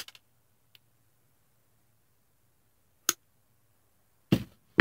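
Fret wire being snipped with end-nipper fret cutters: a sharp metallic click at the start and another about three seconds in, with a faint tick between. Two heavier knocks follow near the end, about half a second apart.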